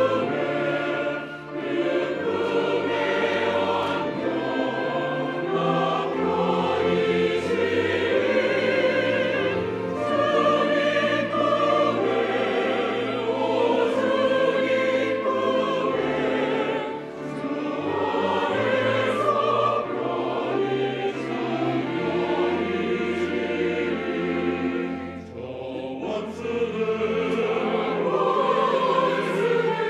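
Church choir singing a slow anthem in Korean, with piano and organ accompaniment holding steady low notes beneath the voices. Phrases end with brief breaths about a second and a half in, around the middle and again near the end.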